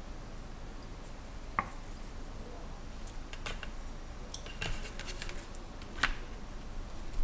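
Light clinks and taps of a stainless steel tray and a small glass dish while hands salt thin raw beef slices and rub the salt in. There are two sharper, briefly ringing clinks, one about a second and a half in and one near the end, with soft clicks in between.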